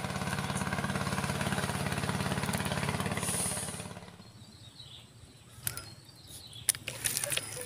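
A small engine running steadily with a fast, even chugging pulse, fading out about four seconds in; after it a few light knocks.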